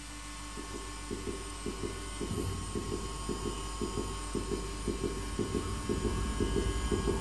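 Live noise music: a fast, irregular stutter of low pulses over a low hum and thin steady high tones, building louder toward the end.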